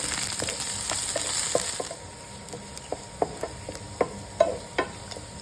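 Chopped onions sizzling in hot oil in a frying pan as they are stirred. The sizzle is loud for about two seconds, then drops to a softer hiss with scattered sharp clicks and taps.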